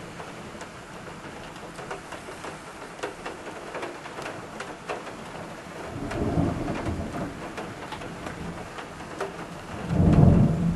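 Heavy thunderstorm rain, with many sharp drop ticks on a window. Thunder rumbles about six seconds in, and a louder, deeper peal comes near the end.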